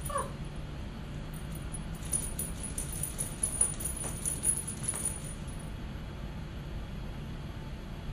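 A baby gives a short high squeal at the start, then a few seconds of light jingling follow, over a steady low hum.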